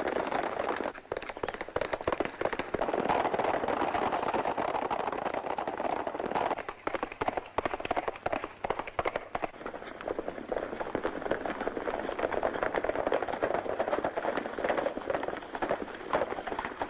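Hooves of several horses galloping, a dense rapid clatter of hoofbeats with two short lulls.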